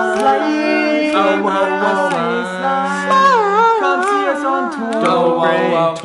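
Several young men singing a cappella together, one voice holding a low steady note under wavering, gliding melody lines.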